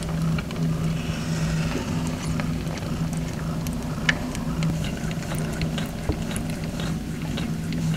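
Scottish Fold mother cat purring, a steady low hum that swells and dips with each breath, with scattered light clicks.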